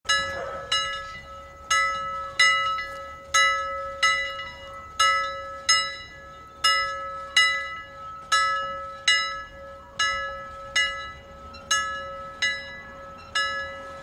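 Intro jingle of bell-like chimes: a run of struck, ringing notes in an uneven, lilting rhythm, each fading before the next, over a steady held tone.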